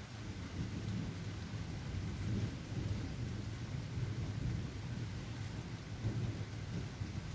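A long, low rumble of thunder that swells about half a second in and keeps rolling, over a steady hiss of rain.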